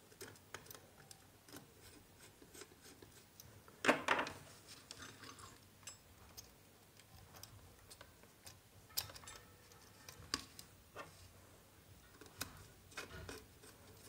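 Faint clicks and scrapes of a screwdriver working brass terminal screws and a stripped copper wire being pushed into a terminal, with a louder knock about four seconds in.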